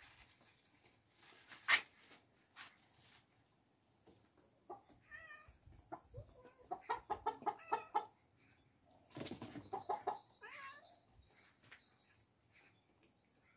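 Domestic hens clucking, with a quick run of clucks about seven seconds in and a few short wavering calls around it. A sharp click a little under two seconds in and a short rustling burst about nine seconds in.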